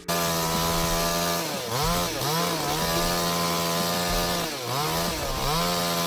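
Chainsaw running at high revs. Its pitch dips briefly and comes back up twice, about two seconds in and again about five seconds in.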